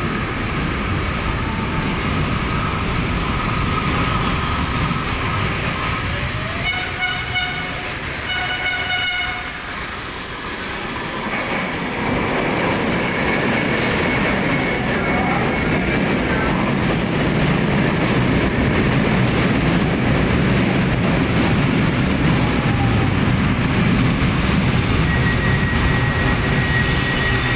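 LRT Line 1 fourth-generation light rail train arriving at a station platform. It sounds two horn blasts of about a second each around seven to nine seconds in. From about twelve seconds its rumble and wheel noise grow louder as the cars pass close, with a thin whine in the middle and again near the end as it slows to a stop.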